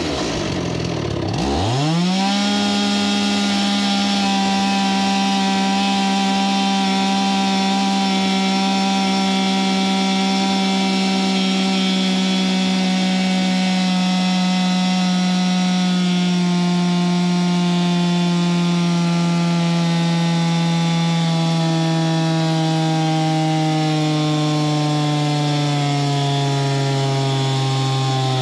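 Two-stroke chainsaw engine with a shortened muffler pipe, cut off just past its hot spot, being run on a dyno. About a second and a half in it revs sharply up to full throttle. It holds a steady high pitch, then its speed slowly sags through the second half as the dyno loads it down.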